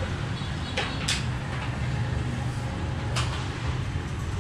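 A steady low hum, with a few short sharp clicks or knocks about a second in and again a little past three seconds.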